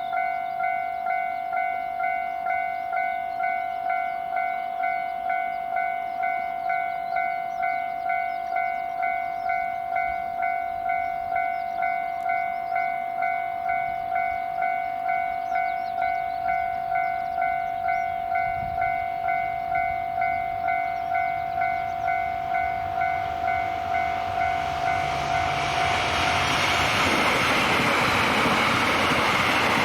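Railway level-crossing warning bell ringing steadily at about two strokes a second. From about 25 seconds in it is drowned by the rising rush and rumble of an electric limited express train approaching and passing over the crossing.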